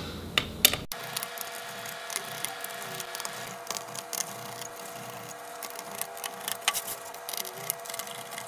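Small Phillips screwdriver backing out the screws that hold a laptop's fan and heatsink assembly, with scattered light clicks and taps of metal and plastic.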